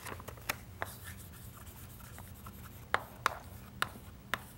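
Chalk writing on a blackboard, with about six sharp taps as the chalk meets the board, two early and four in the second half.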